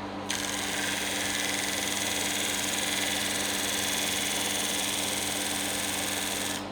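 Electric power tool in a woodworking shop running steadily: a low motor hum with a bright hiss over it that comes in sharply about a third of a second in and holds steady.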